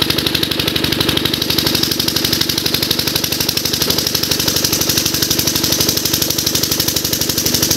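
Small single-cylinder diesel irrigation pump-set engine running steadily with a fast, even beat, while water gushes from the pump's outlet pipe.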